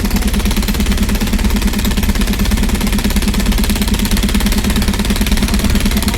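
An engine running steadily with a rapid, even throb, under a loud hiss.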